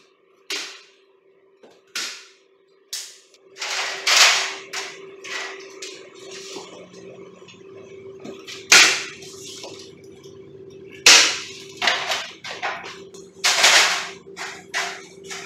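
Sharp snapping impacts, irregular and roughly a second or two apart: staples being driven to fasten the Safe-T-Beam safety-sensor wire along the wall and door frame. A steady low hum runs underneath.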